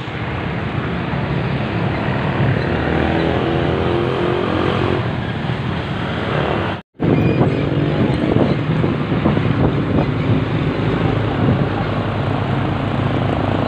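Road noise while riding: motorcycle and tricycle engines running close by amid wind on the microphone, steady throughout. The sound cuts out completely for a moment just before seven seconds in.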